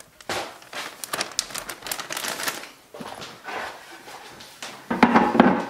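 Plastic zipper bag crinkling and rustling as pork strips are shaken in coconut flour, thick for about three seconds and then softer. A louder knock comes about five seconds in.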